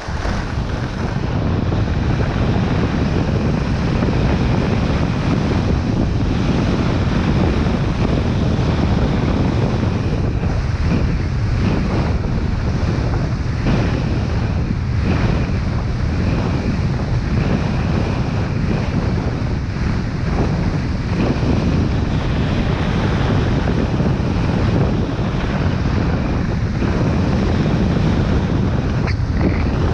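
Wind rushing and buffeting over the microphone of a downhill skier's camera, mixed with the hiss and scrape of skis on groomed packed snow, with repeated brief swishes as the skier turns.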